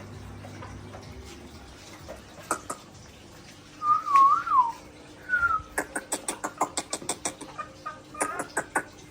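A wavering whistle about four seconds in, then a short falling whistle, followed by two runs of quick sharp clicks at about six a second.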